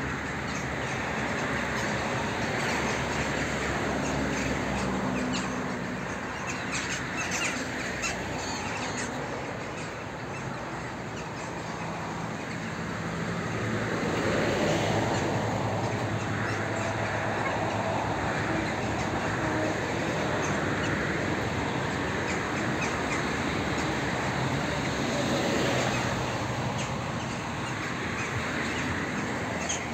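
Outdoor background noise with birds calling and a steady low hum like a distant engine.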